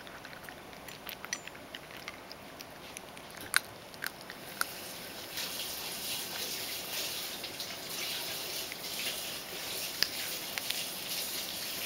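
Ragdoll cat eating dry kibble. Scattered crunches and clicks at first, then from about five seconds in a denser, continuous crunching.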